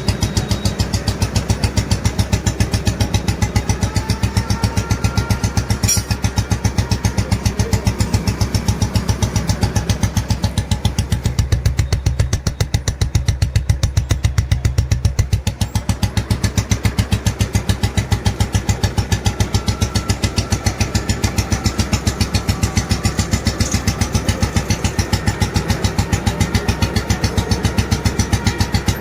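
Made-in-England Royal Enfield G2 Bullet single-cylinder engine idling with its steady, even thump, after a piston and ring change. Around the middle the sound briefly turns deeper and duller.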